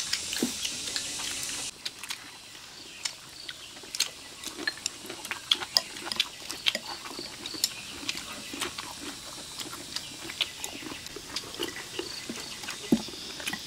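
Sounds of people eating at a shared meal: light, irregular clicks of chopsticks and spoons against bowls, with chewing. A steady hiss stops suddenly about two seconds in.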